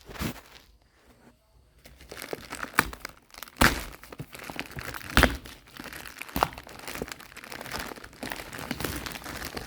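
Cardboard and plastic packaging being handled and opened: crinkling and rustling with several sharp knocks. The first two seconds are quiet.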